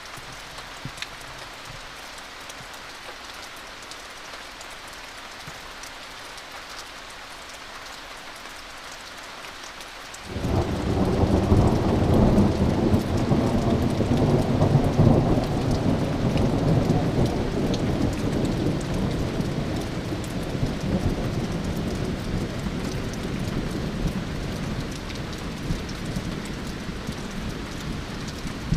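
Steady rain falling, then about ten seconds in a thunderclap breaks in suddenly and becomes a long rolling rumble of thunder that slowly dies away over the following fifteen seconds or so.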